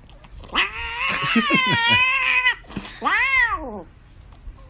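A cat giving two loud, drawn-out meows: a long wavering one, then a shorter one that rises and falls in pitch. The cat is complaining as its lickable treat is pulled away.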